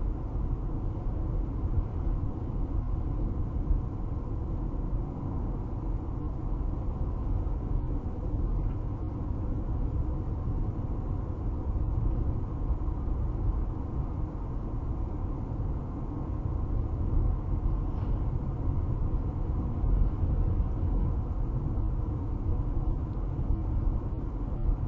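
Steady road and engine rumble inside a car's cabin while it cruises at about 65 mph on a highway.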